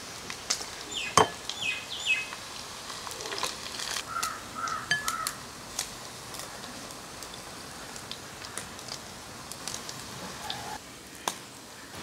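Tongs clinking against a frying pan and bowl in a scatter of light clicks as fried chicken pieces are lifted out, over a faint sizzle of frying oil. A few short bird chirps come through in the background, about a second and a half in and again around four to five seconds in.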